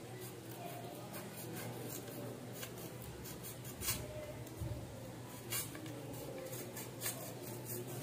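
Stiff card and paper being handled and cut by hand: a series of short, sharp clicks and rustles at irregular intervals, over a low steady hum.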